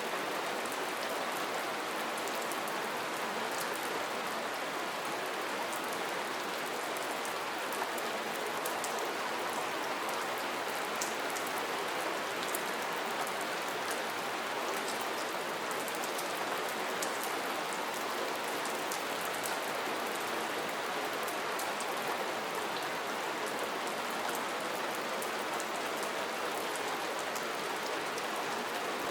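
Soft, steady rain falling, an even patter of drops with fine ticks of single drops scattered throughout.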